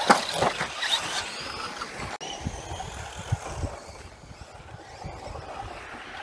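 Brushless Traxxas Stampede VXL RC truck crashing on a dirt track: a sharp impact just after the start as it tumbles, with the electric motor whining up and down in pitch. After about two seconds the sound drops to the quieter whine of the truck running farther off, with low thumps.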